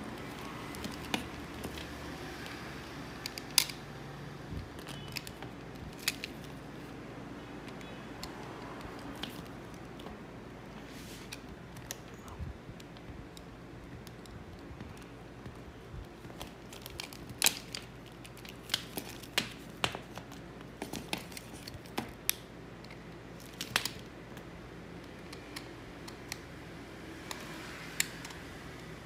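Scattered sharp clicks and snaps of a utility knife cutting into a plastic action figure's thigh while the figure is handled, coming more thickly past the middle.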